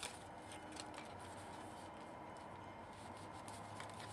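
A few faint clicks and light rubbing as a camcorder is handled, out of its box, over a steady low hum.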